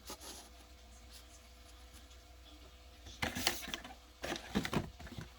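Foil trading-card pack wrapper crinkling and tearing open in two short bursts, about a second apart near the end.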